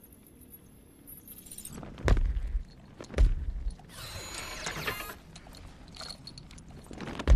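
Film sound effects of a heavily armoured giant: two heavy, booming footfalls about a second apart, then mechanical whirring and metallic clinking from its gear, and another heavy thud near the end.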